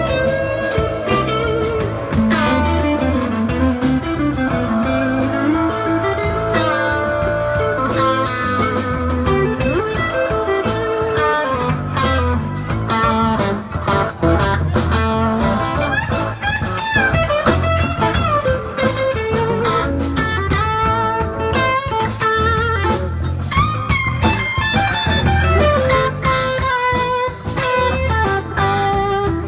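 Live blues-rock band playing an instrumental passage, with an electric guitar playing lead lines full of bends and vibrato over drums.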